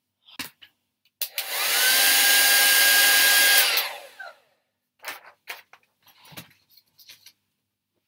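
Handheld hair dryer switched on for about two and a half seconds: its motor whine rises as it spins up, blows steadily, then falls away as it is switched off. A few faint knocks and rustles follow.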